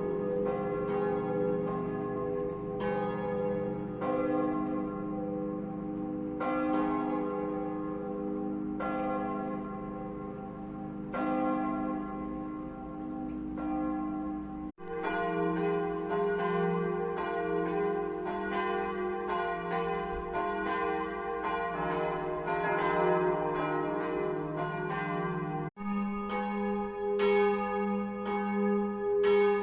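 Several church bells ringing together in a full peal, strikes overlapping over a long humming ring. The sound breaks off abruptly twice, about halfway through and near the end, and each time resumes with a different blend of bells.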